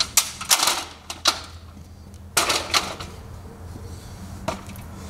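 Metal stepladder being handled and set in place, a series of sharp clanks and knocks in clusters, the last one near the end.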